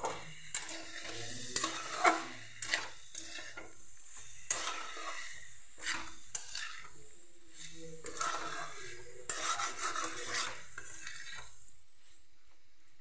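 A metal spatula stirs and scrapes a potato and jackfruit curry around a metal kadhai in repeated strokes, with a few sharp clinks against the pan in the first few seconds and sizzling underneath. The stirring stops near the end.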